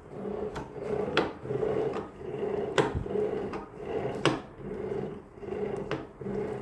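Kia Stinger electric power steering rack on the bench, its assist motor grinding loudly in a rough rasp that swells and fades again and again, with a sharp click about every second and a half. The noise comes more from the assist motor than from its bearing and is the symptom of the failing steering gear.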